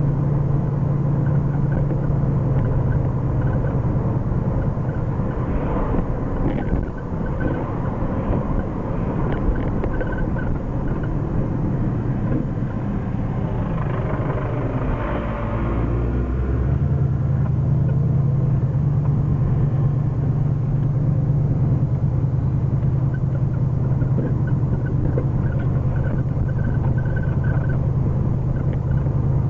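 1979 Ford Mustang Pace Car's engine running under way, heard from inside the cabin with road noise; the engine is being run in. The engine note eases off for several seconds near the middle and picks up again, steady, after about seventeen seconds.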